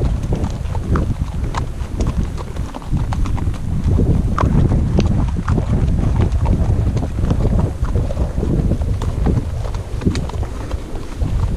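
Hooves of Icelandic horses clip-clopping on a dirt trail, a quick uneven patter of strikes, over a steady low rumble of wind on the microphone.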